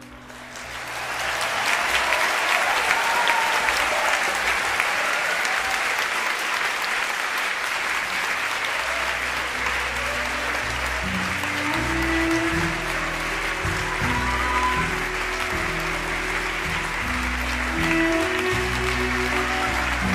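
Audience applauding, swelling up about a second in and holding steady. About halfway through, music with steady low bass notes starts under the clapping.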